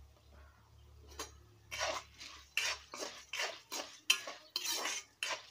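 A spoon stirring toor dal as it roasts in oil in a metal kadai, scraping the pan in short quick strokes, about three a second, starting a little over a second in.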